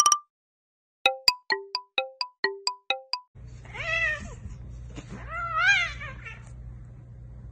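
A quick tune of short bell-like notes, about four a second. Then a cat meows twice, each call rising and falling in pitch, over a low steady hum.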